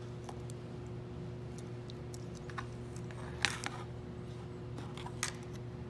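Faint scattered clicks and ticks from handling a rimless metal eyeglass frame, the sharpest about three and a half seconds in and again past five seconds, over a steady low hum.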